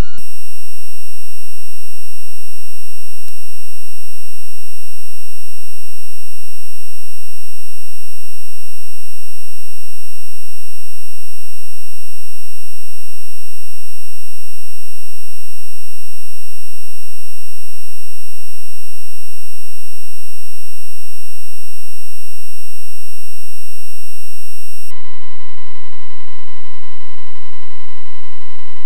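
Very loud, steady electronic buzzing tone with many overtones, from a music track sped up to an absurd tempo and amplified until it no longer sounds like music. About 25 seconds in it switches abruptly to a different steady tone.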